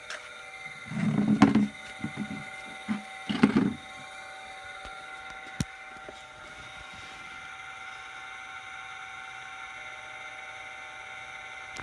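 Two short bursts of a power drill boring out a hole through the house wall, about a second in and again at about three and a half seconds, over a steady hum. A sharp click follows a couple of seconds later.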